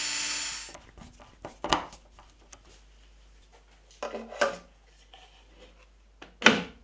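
A cordless drill runs briefly and stops under a second in, then come a few scattered wooden and plastic knocks and clunks as a router on its plywood insert plate is lowered into a router table and seated; the loudest knock comes near the end.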